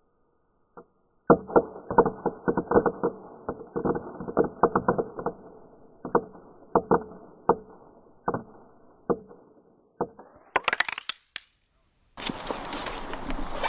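Crackle-ball fireworks popping in a fast, irregular string of sharp cracks that thins out over several seconds, muffled and dull at first, with the last few cracks sharper and brighter. Near the end a steady rushing noise takes over.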